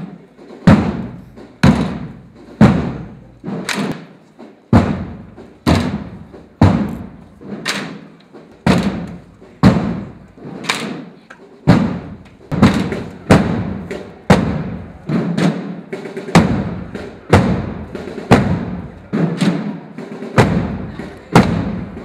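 Marching drum beating a slow, steady march, loud sharp strokes about one a second, each with a short ringing tail, quickening a little with some lighter strokes in between in the second half.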